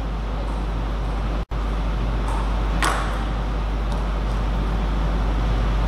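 Steady hiss and low electrical hum of the hall recording, with one sharp click of a table tennis ball about three seconds in and a few fainter ticks. The sound cuts out for an instant about a second and a half in.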